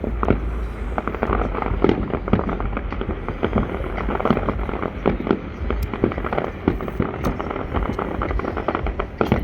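Fireworks display in full swing: a dense, irregular run of sharp cracks and bangs from bursting aerial shells, over a constant low rumble.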